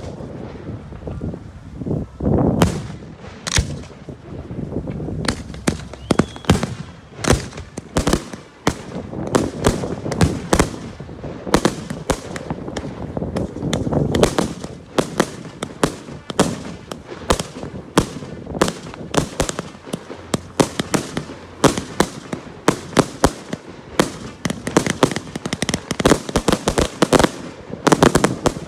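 Fireworks display: a steady run of sharp bangs from bursting shells, many overlapping, coming thickest near the end.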